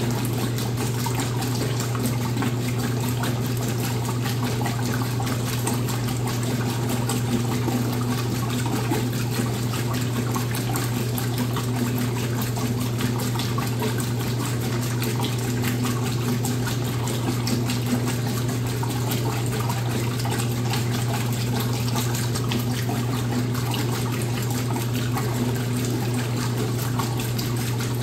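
Top-loading washing machine with water rushing steadily over a constant low electrical hum.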